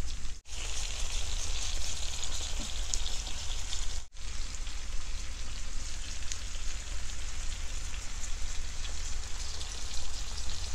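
Triggerfish fillets frying in butter and oil in a pan: a steady crackling sizzle over a low hum. It drops out briefly twice, about half a second and four seconds in.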